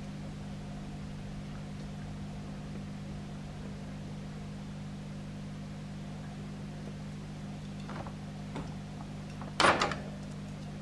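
Steady low appliance hum. A couple of faint ticks, then near the end a loud short cluster of sharp clicks and taps as a Shetland Sheepdog's claws strike the hard tiled floor right beside the microphone.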